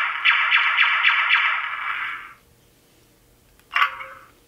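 Electronic blaster shot effects from the Plecter Labs Blaster Core v5 sound board in a replica E-11 blaster, firing in rapid succession at about four shots a second and stopping after about two seconds. A single short electronic effect sounds about a second and a half later.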